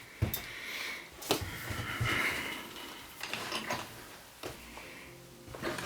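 Handling noise from work on a bass guitar's output jack: a few light knocks and clicks, with scraping and rustling between them.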